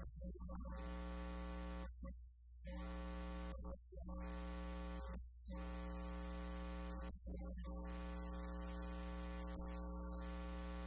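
A steady held electronic tone over a low hum, unchanging in pitch, that drops out briefly five or six times.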